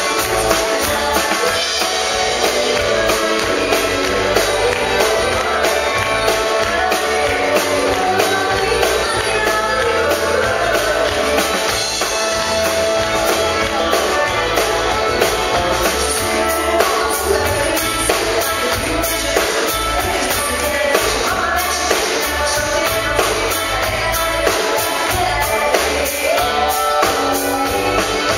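Live band playing amplified music, with electric bass, drum kit and guitar, and a woman singing into a microphone at times.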